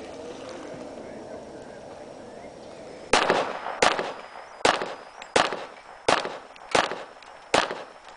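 Pistol shots: seven sharp shots at a steady pace, about 0.7 seconds apart, starting about three seconds in, each followed by a short echo.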